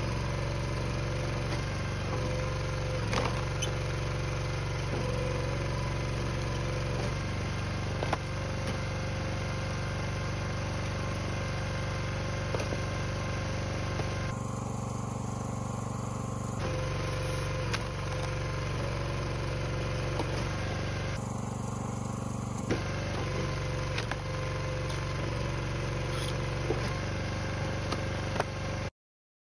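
Small engine of a hydraulic log splitter running steadily while rounds are split, with occasional sharp knocks from the wood. The sound cuts off abruptly just before the end.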